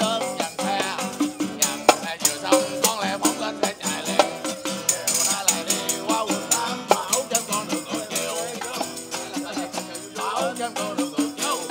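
Live acoustic guitar strumming with a man singing, accompanied by a hand tambourine shaken and struck in a steady rhythm, its jingles rattling throughout.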